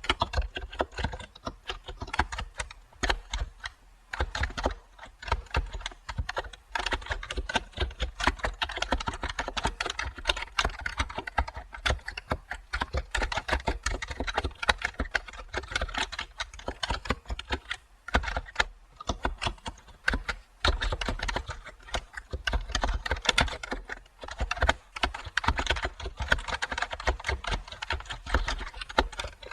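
Steady typing on a computer keyboard: many quick, uneven key clicks, with a couple of brief pauses.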